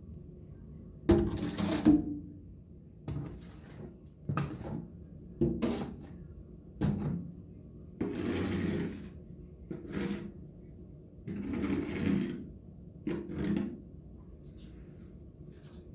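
Household handling noises: a run of knocks and clunks, the loudest about a second in, with two longer rustles of about a second each, over a steady low hum.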